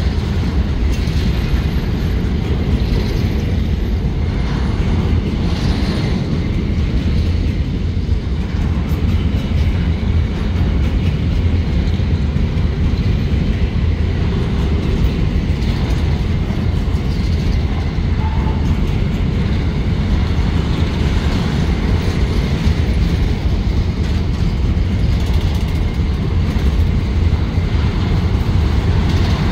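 Freight train of covered grain hopper cars rolling past close by: a steady, loud, low rumble of steel wheels on the rails.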